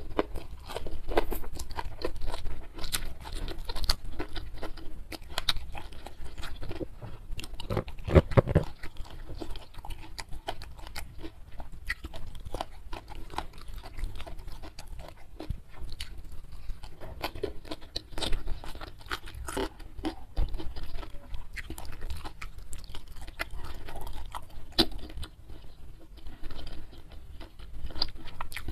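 Close-miked ASMR eating sounds: a person chewing and crunching mouthfuls of food in an irregular run of wet clicks and crunches. The loudest moment is a brief cluster of low knocks about eight seconds in.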